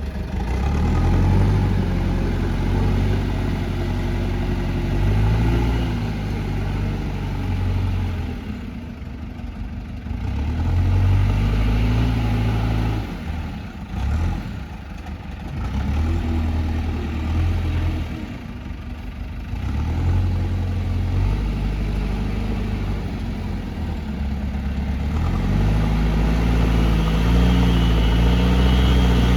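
JCB loader's diesel engine working under load, its revs rising and falling again and again as it pushes mud, with a few brief drops to a lower note, and climbing to a higher, steadier pitch near the end.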